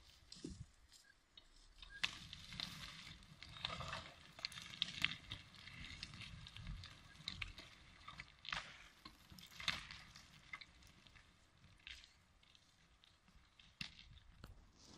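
A cut log round tumbling away down a slope through dry slash: scattered cracks of snapping twigs and dull knocks, fading out as it goes further away.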